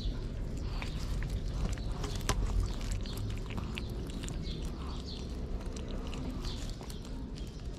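Cats eating wet cat food from a plate up close: irregular wet chewing and licking smacks, with one sharper click a little over two seconds in.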